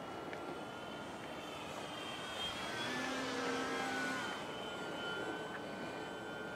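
Electric radio-controlled model airplane flying past overhead: a motor and propeller whine that grows louder and slides down in pitch as it passes, then continues at a steadier lower pitch.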